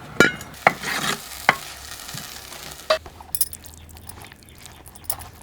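A metal spoon knocking and scraping in a cooking pan while food sizzles: a few sharp, briefly ringing taps in the first three seconds, then lighter quick clinks.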